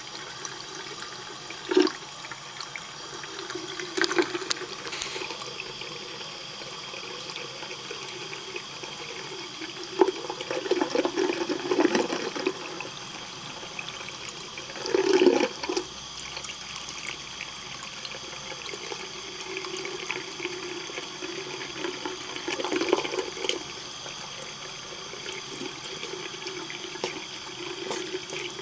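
Thin stream of tap water running from a bathroom faucet into a sink, falling onto a cat's paws and fur. It runs steadily and gets louder for a second or two several times.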